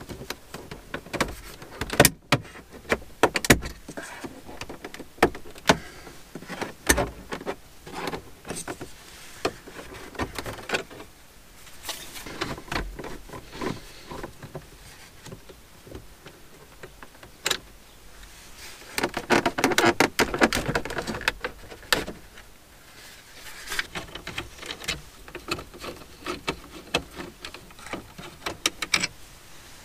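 Irregular clicks, knocks and scrapes of plastic dashboard trim and instrument-cluster parts of a Volkswagen Touareg being pried and worked loose by hand with plastic trim tools and a screwdriver, with a longer spell of scraping and rubbing about two-thirds of the way through.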